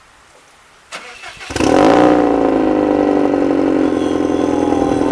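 Subaru WRX STI (VAB) EJ20 turbocharged flat-four starting through a ROWEN titanium exhaust with a variable valve: a click about a second in, a brief burst of starter cranking, then the engine catches with a short rev flare and settles into a steady idle.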